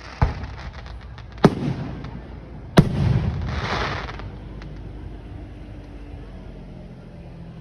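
Fireworks bursting overhead: three sharp bangs about a second and a half apart, the last and loudest followed by about a second of hiss.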